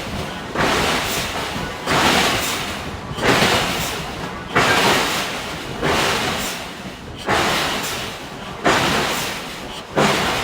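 Giant hydraulic forging hammer striking hot steel in a steady rhythm, about one blow every 1.3 seconds, each blow fading away before the next.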